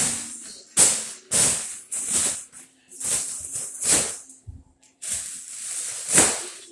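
A large gold foil (mylar) number balloon crinkling and swishing as it is punched and swung, in about eight sharp rushes of crackle, each fading quickly.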